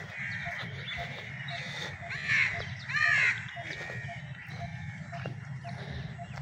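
A crow cawing twice, about two and three seconds in, over a steady low background hum.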